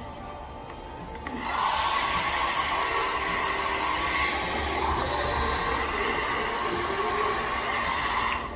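Handheld hair dryer switched on about a second in, blowing steadily with a constant whine, then switched off just before the end.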